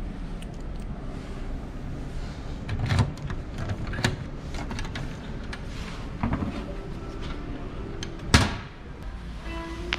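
Key-locked wooden shoe locker being worked: a key turning in the lock with metallic clicks, then the small door swinging open, with a sharp knock about eight seconds in that is the loudest sound.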